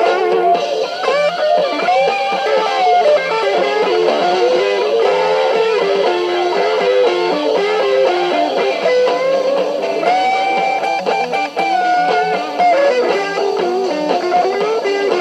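Rock band playing an instrumental passage led by an electric guitar solo, its notes bent and sliding, with one long held note about ten seconds in.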